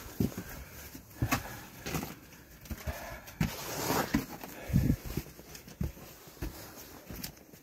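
Footsteps on a snowy, rocky trail: irregular soft thuds, with a longer crunch of snow about four seconds in.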